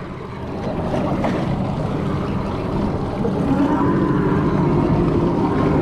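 Wind on the microphone and water washing along a boat's hull, with a steady low hum from the outboard motors that grows a little stronger about three and a half seconds in.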